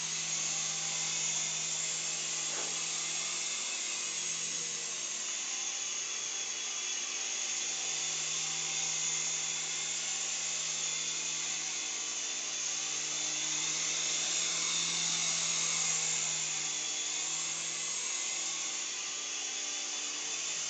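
Small electric remote-control helicopter in flight, its tiny motors and rotors giving a steady high whine over a low hum, swelling a little now and then as it is manoeuvred for a landing.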